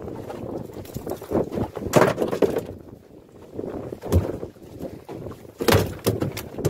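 Wind buffeting the microphone, with rustling and a few knocks from fishing gear being handled close by; the louder bursts come about two seconds in, again just past four seconds, and near the end.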